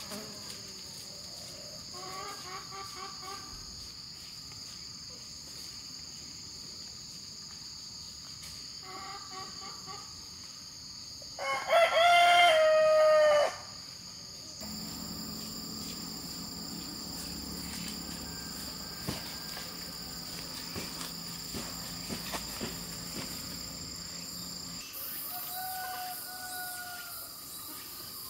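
A rooster crowing loudly once about halfway through, with fainter, shorter calls a few times before and once near the end, over a steady high-pitched insect drone.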